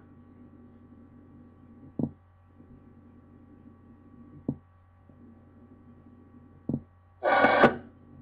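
Radio scanner idling between transmissions: a steady hum with a sharp click every two to three seconds, and a short burst of radio static about seven seconds in.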